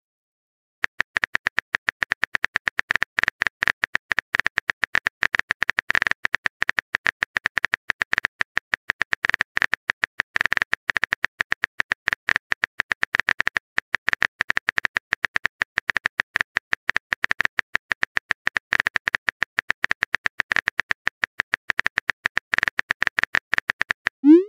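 Phone keyboard typing sound effect from a texting-story app: a dense run of quick taps, many a second, starting about a second in.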